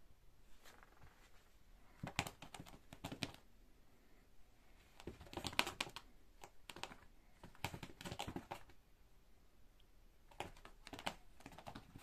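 A cat's paws and claws scrabbling on a carpeted floor as she pounces after a laser dot, heard as several short bursts of quick light clicks and scratches.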